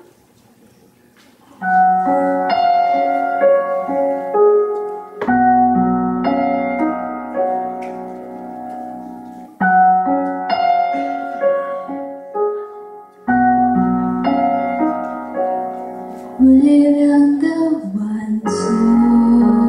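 Piano intro to a slow pop ballad: the same gentle phrase, each time opening on a struck chord, plays four times starting about two seconds in. Near the end a woman's voice starts singing over it.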